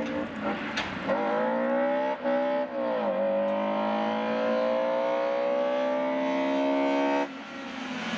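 BMW E30 rally car's engine accelerating hard, rising in pitch with quick gear changes about one, two and three seconds in. It then pulls for about four seconds in one gear before the driver lifts off near the end.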